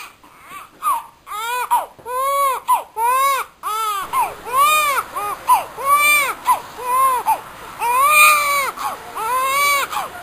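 An infant crying: a steady run of short wailing cries, each rising and falling in pitch, about two a second.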